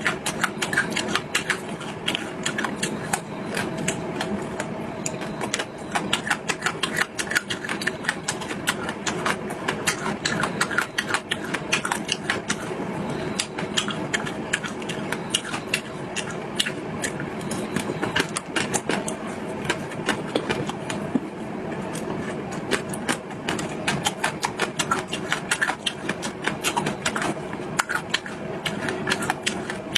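Close-miked chewing and mouth sounds of someone eating: a continuous, irregular stream of wet clicks and smacks, over a faint steady hum.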